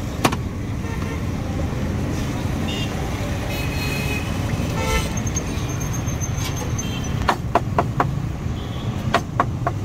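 Steady street traffic rumble, with a couple of short vehicle-horn toots a few seconds in. Near the end comes a run of sharp clinks as the kulfi vendor works inside his cart's ice chest.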